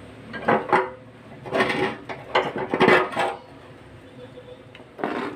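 Metal parts and tools being handled, clinking and clattering in several short bursts.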